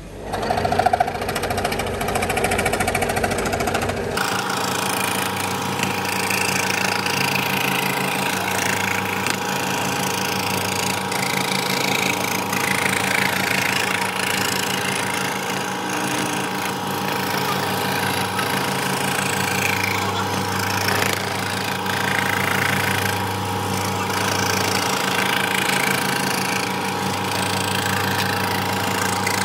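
Electric woodworking power tool running steadily, its motor humming with a fast rattle; the sound changes about four seconds in.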